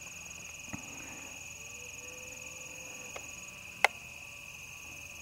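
Steady high-pitched chorus of insects trilling, with a couple of faint clicks and one sharp click about four seconds in.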